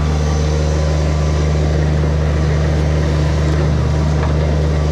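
Kubota BX compact tractor's diesel engine running at a steady speed, spinning a Woodland Mills WC46 PTO wood chipper that is not taking any material; the drone holds even throughout.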